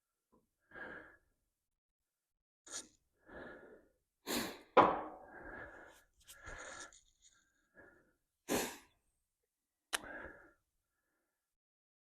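A string of about ten short, separate scrapes and knocks from handling parts while working on the truck's suspension, with the sharpest knock about five seconds in.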